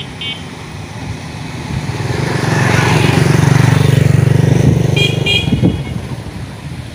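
Eicher 551 tractor's diesel engine running, its revs rising about two seconds in to a loud, steady high and easing off near the end. Short high-pitched horn toots come once near the start and twice about five seconds in.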